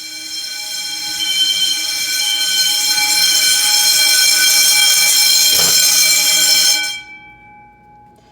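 Fire alarm system in drill mode, its alarm horns sounding steadily and growing louder over the first second or so, then cutting off abruptly about seven seconds in as the system goes quiet.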